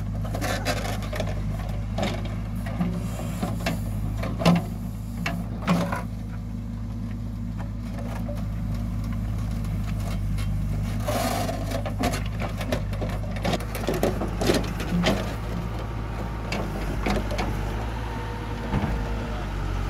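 Backhoe loader's diesel engine running steadily under load while its rear bucket digs a trench in dry earth. Sudden knocks and scrapes come several times as the bucket works the soil.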